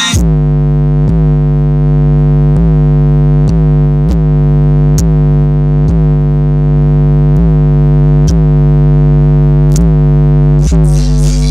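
Car stereo playing a loud, steady synthesizer tone with a strong low note, re-struck about once a second with a faint click at each restart.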